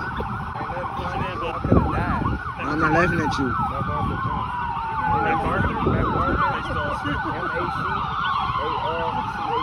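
Emergency vehicle sirens: a slow wail rising and falling about every four seconds, overlaid by a fast, repeating yelp.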